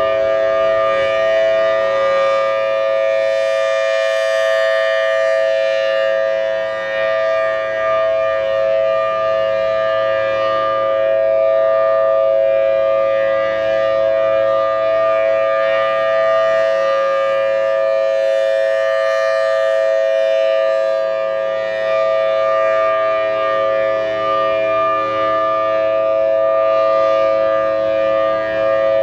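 Federal Signal Thunderbolt 1000T supercharged outdoor warning siren sounding at full speed: a steady two-note chord that doesn't change pitch. Its upper tones swell and fade about every seven or eight seconds as the rotating horn sweeps past.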